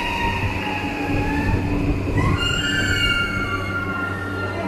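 Toei 5500 series electric subway train slowing to a stop alongside the platform, with a whine of several steady high tones that change to a new, higher set about halfway through, over a steady low rumble.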